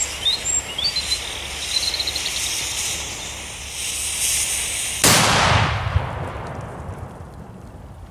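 A Cobra 8 flash-powder firecracker's fuse burning with a steady hiss, then about five seconds in a single loud bang that dies away over a couple of seconds. Birds chirp near the start.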